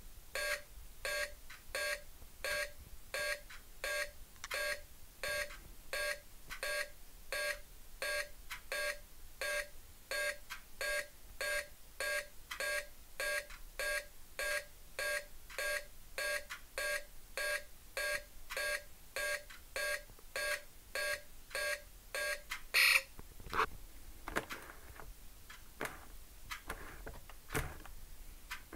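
Electronic countdown beeps from a Predator wrist-gauntlet bomb prop replica, about two a second and evenly spaced. Near the end the beeping stops with a louder burst, followed by a few knocks.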